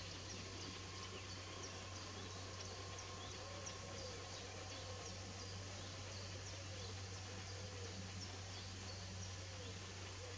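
Faint outdoor birdsong: short high chirps from small birds throughout, and a low rising-and-falling call repeated about once a second from a few seconds in, over a steady low hum.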